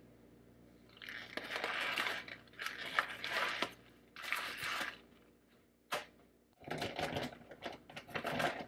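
Grease-soaked paper wrapping rustling and crinkling as it is peeled off a smoked pork butt in an aluminium foil pan, in three bursts with short pauses between.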